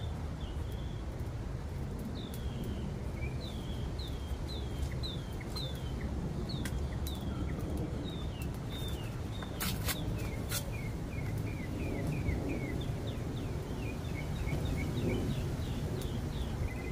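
A bird calling again and again in short, quick falling chirps, in runs that go on through the whole stretch, over a steady low rumble of background noise. A few sharp clicks sound about ten seconds in.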